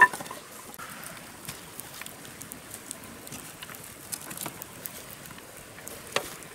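Cut firewood sticks clattering together as an armful is dropped onto the ground, then an open wood fire crackling with scattered small pops and another knock of wood near the end.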